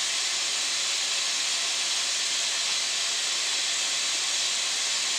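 Water running from a kitchen tap, a steady even hiss.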